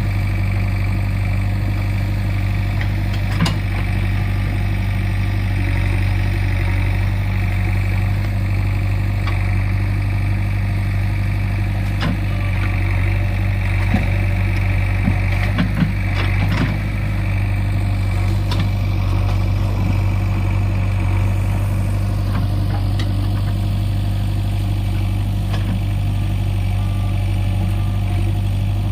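JCB 3DX backhoe loader's diesel engine running steadily at low speed, with a few short knocks scattered through.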